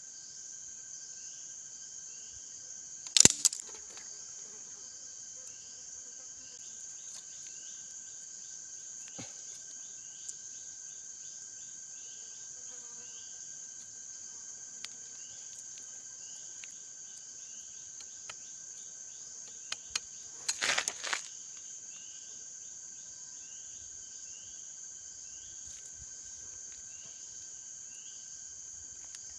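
Insects droning steadily in a high continuous chorus, with a fainter steady tone and short repeated chirps beneath it. Sharp knocks of bamboo sticks being handled stand out about three seconds in and again in a short cluster around twenty seconds.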